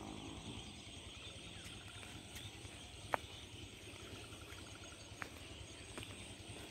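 Faint countryside ambience: a quiet, rapidly repeated chirping trill, heard twice, over a soft steady background, with a few sharp clicks, the loudest about three seconds in.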